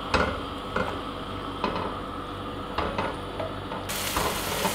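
Sliced onions being stirred in oil in a non-stick pan with a silicone spatula: irregular scrapes and knocks of the spatula against the pan over a light sizzle as the onions are sautéed.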